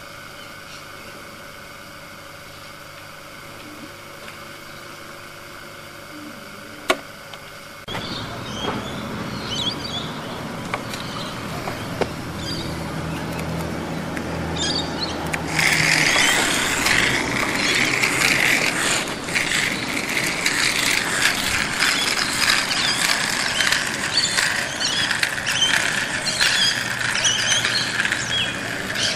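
Small toy electric motor and gear train whirring with squeaks and ratchety clicks, louder from about halfway in, after a quieter stretch of steady faint hum with a single click.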